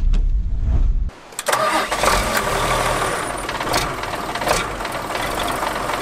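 The diesel engine of a 1981 Mitsubishi Fuso K-MK116H bus being started with the key: heavy low cranking and catching, a brief dip about a second in, then the engine running loudly and steadily.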